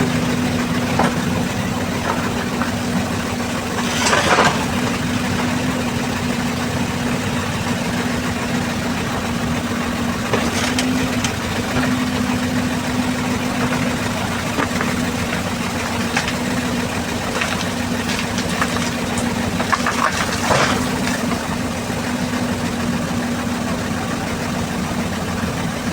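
An engine running steadily, with a few brief clatters about 4, 10 and 20 seconds in.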